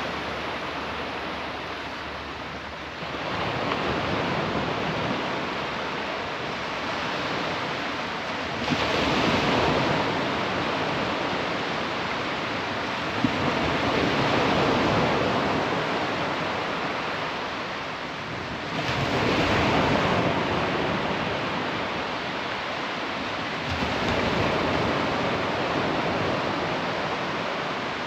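Surf breaking on a beach: a steady rush of waves that swells louder every five to ten seconds as each wave comes in.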